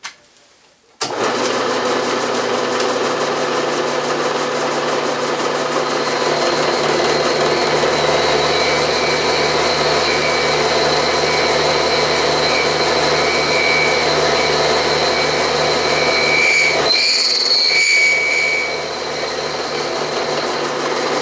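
Milling machine starting up abruptly about a second in and running steadily as an end mill cuts a steel workpiece down to thickness, with a steady high whine over the cutting noise. Near the end the sound changes briefly and then runs on a little quieter.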